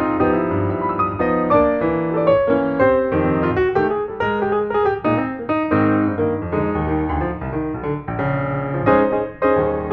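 Background piano music, a steady run of notes with chords underneath.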